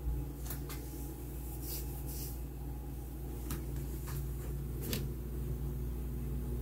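A few short rustles and taps of paper cards being handled, over a steady low hum.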